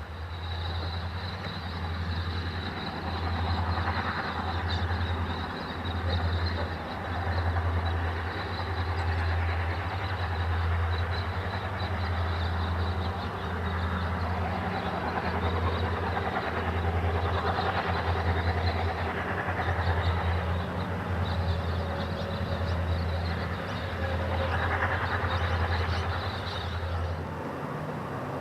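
EMD diesel-electric locomotives of a heavy grain train working hard, a deep pulsing engine throb with a steady high whine above it and rail noise swelling and easing.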